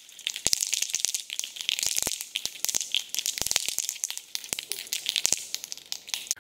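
Rust-Oleum aerosol spray-paint can being shaken hard, its mixing ball clacking rapidly and unevenly inside the can to mix the paint before spraying.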